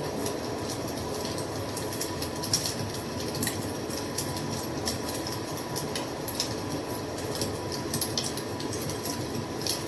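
Wood fire crackling, with irregular sharp pops and snaps over a steady low rumble of the burning; one pop about two and a half seconds in stands out.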